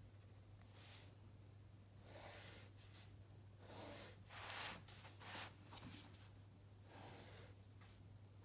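Faint scratching of a graphite pencil drawing straight lines on paper: a series of short strokes, irregularly spaced, over a steady low hum.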